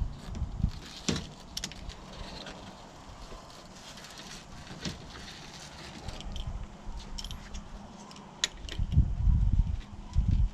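Scattered small clicks and light metallic clinks of hands working with tools on a screen door, with a few louder low thumps near the end.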